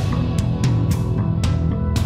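Background rock music with distorted electric guitar and a steady drum beat.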